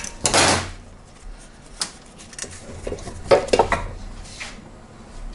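Small steel hardware and hand tools clinking and knocking against each other and the engine, in a few separate clusters. A short rasping burst comes about half a second in.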